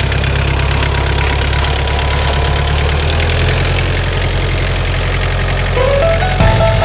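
Farm tractor engine running steadily at low revs, its pitch dropping slightly about halfway through. Background music comes in near the end.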